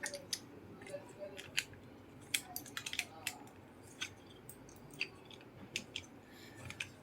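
LEGO bricks clicking as they are handled and pressed together: irregular sharp clicks, several in quick succession around two to three seconds in.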